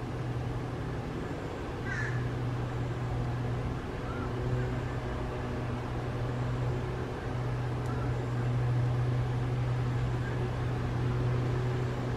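A steady low mechanical hum over even background noise, with a short bird call about two seconds in and fainter calls near four and a half and eight seconds.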